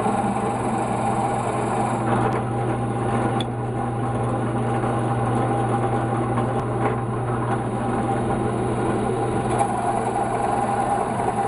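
Benchtop drill press running steadily while an 11/16-inch spade bit bores shallow counterbores into a cambará wood block.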